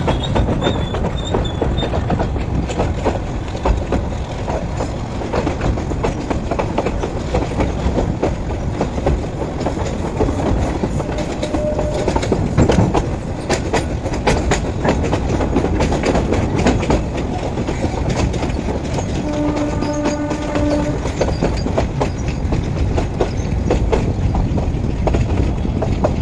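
Passenger train running, heard from an open coach door: a steady rumble and wind with the clatter of wheels over rail joints. A train horn sounds once for about two seconds, about twenty seconds in.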